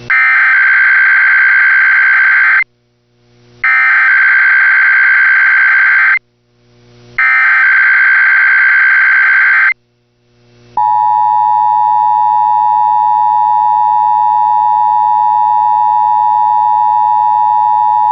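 Emergency Alert System SAME header: three long bursts of modem-like digital data, each about two and a half seconds with a second's pause between. About eleven seconds in, a steady, loud EAS attention tone begins.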